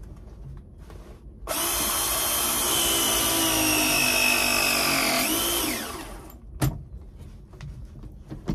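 Milwaukee M12 battery press tool running a press cycle on a copper pipe fitting: a steady motor whine of about four seconds whose pitch rises and then drops just before it stops. A single sharp click follows about a second later.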